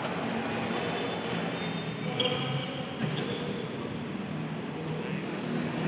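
Steady, echoing hubbub of a large indoor sports hall during a futsal game: faint players' voices and movement on the court blur into a continuous murmur, with a brief call a little past two seconds in.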